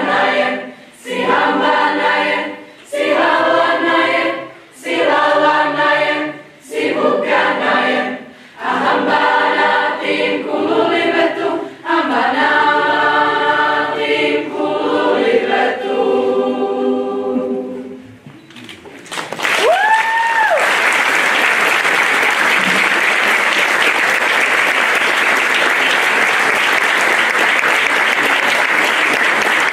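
Youth choir singing in short phrases with brief breaks, ending on a held chord that dies away about 18 seconds in. A single whistle rising and falling in pitch follows, then steady applause.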